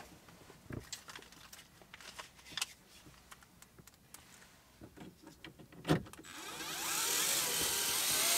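A few faint handling clicks and a knock, then about six seconds in a light cordless electric screwdriver runs steadily for a couple of seconds, its motor whirring as it drives a screw into the dash.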